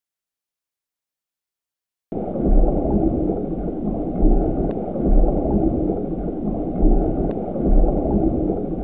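Silence for about two seconds, then a steady low underwater-ambience rumble begins abruptly, swelling deeper about every second and a half.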